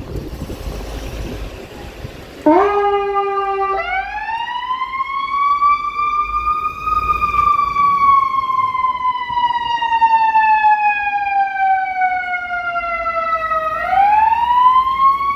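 Ambulance siren starting up on a wail: a short steady low tone about two and a half seconds in, then a slow glide that rises for about three seconds, falls for about seven, and starts rising again near the end. Before it, only low engine and traffic noise.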